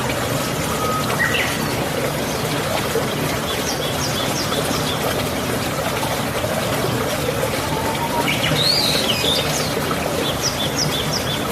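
Steady running water like a small stream, with songbirds chirping over it: a few short whistles early on, a quick series of high chirps, a warbling call past the middle and another run of chirps near the end.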